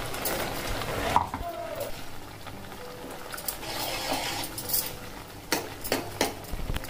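Steel ladle stirring ground paste into a kadai of simmering mashed greens, with several short knocks and scrapes of the ladle against the pan, most in the second half.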